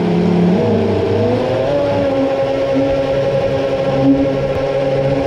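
Twin electric motors of a Dumas S Type 45 radio-control boat whining. They rise in pitch over about the first two seconds as the boat speeds up, then hold steady, with water rushing past the hull and a brief splash about four seconds in.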